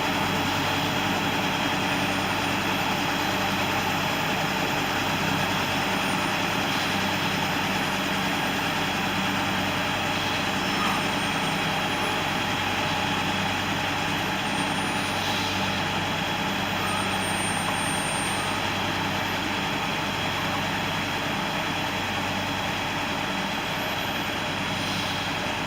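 Cat excavator's diesel engine running steadily, with the rapid rise and fall in engine speed that the owner calls a high-frequency oscillation of the RPM.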